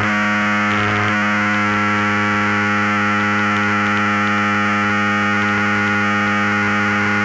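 Steady, unchanging drone of a model aerobatic plane's motor and propeller at constant throttle, picked up by its onboard camera.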